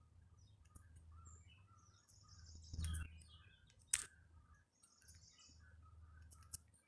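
Faint bird chirping in the background over a low steady hum, with a sharp click about four seconds in.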